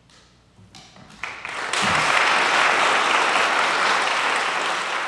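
Audience applause: a few scattered claps about a second in, quickly swelling into full, steady applause.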